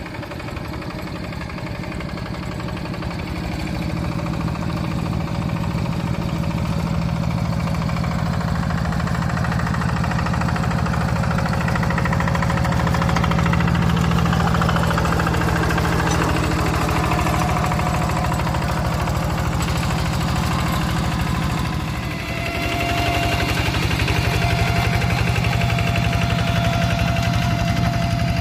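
Single-cylinder diesel engines of Kubota and Yanmar two-wheel hand tractors running steadily under load while tilling mud. The sound grows louder over the first few seconds as one passes close by. It dips briefly about 22 seconds in, then carries on at a slightly different pitch.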